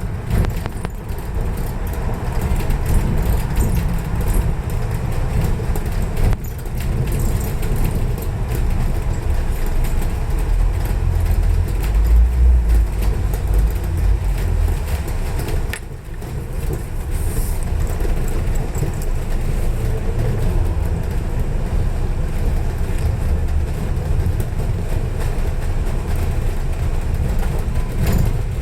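Railway station ambience: a steady, loud low rumble, heaviest between about ten and fifteen seconds in.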